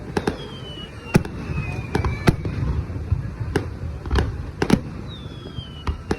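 Aerial fireworks bursting: a run of sharp bangs at irregular intervals over a low rumble. Twice a thin whistle glides down in pitch, once early and once near the end.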